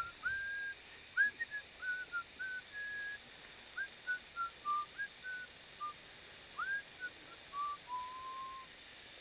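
A person whistling a casual tune: a string of short pure notes, several sliding up into the note, ending on a longer, lower held note.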